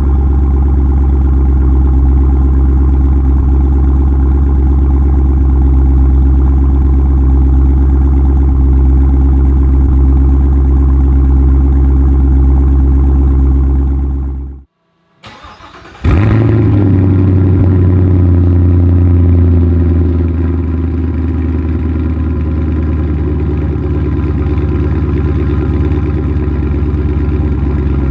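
2017 Camaro SS 1LE's 6.2-litre V8 through a Stainless Works cat-back exhaust, idling steadily, then cutting out. After a brief crank the engine fires about halfway through with a short rev flare and settles back into a steady idle.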